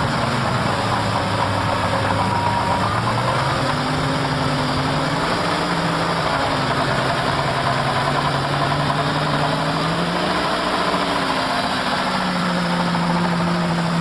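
Lifted Jeep's engine running under load as its big mud tires spin and churn through deep mud. The engine pitch climbs slowly and steps up about two seconds before the end.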